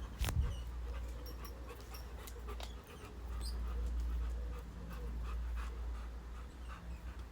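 Wind buffeting the microphone in high winds, a steady low rumble that eases briefly about three seconds in. A sharp knock comes about a third of a second in, with scattered small clicks and chirps over the rumble.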